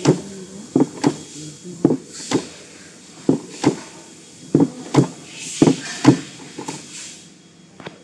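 Hand-operated desk-type cold pressure welding machine being cycled: sharp clacks, mostly in pairs about every second and a bit, as its dies clamp and press the ends of 1.2 mm wire together. The clacks thin out near the end.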